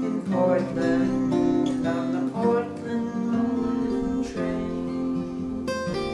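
Acoustic guitar strumming chords in an instrumental passage of a song, with a fresh strum every second or two.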